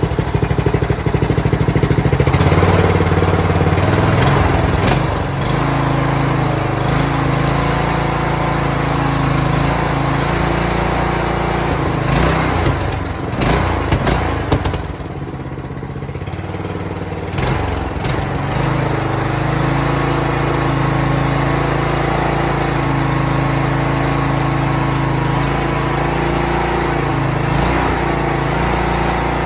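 Riding lawnmower's 15.5 hp Power Built single-cylinder engine running just after being started, loudest in the first few seconds. About halfway through it briefly drops in level and speed, then settles back to a steady run.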